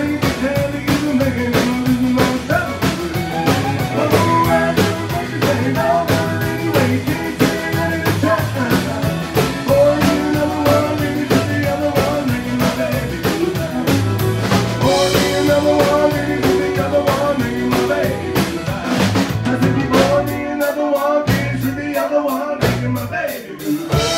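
Live country-rock band playing an instrumental passage: drum kit keeping a steady beat under electric guitar, fiddle, pedal steel and acoustic guitar. Near the end the bass and kick drum drop out in short stops for a few seconds.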